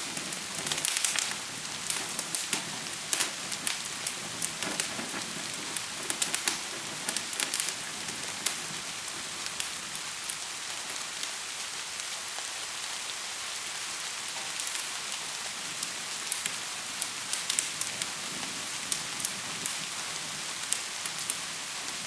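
Steady hiss of gentle rain mixed with a crackling fire's irregular sharp pops, which come thickest in the first several seconds and again near the end.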